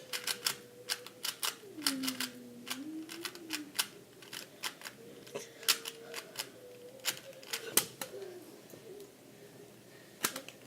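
Sharp, irregular clicking, several clicks a second, over a faint thin wavering tone.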